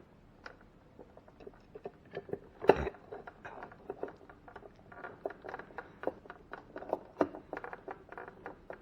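Driving a screw to mount a replacement ice maker, with a dense run of small clicks and scrapes of tool and parts and one louder knock nearly three seconds in.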